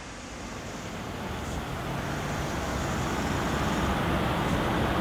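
Street traffic noise fading in, a steady rushing hiss that grows louder throughout.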